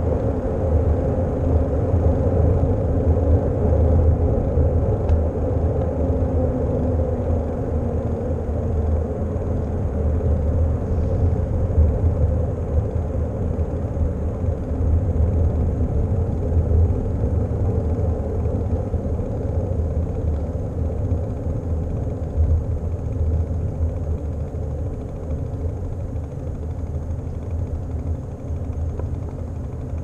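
Wind rumbling on a bicycle-mounted GoPro's microphone, mixed with the noise of bicycle tyres rolling on asphalt. The rumble is steady and eases a little toward the end.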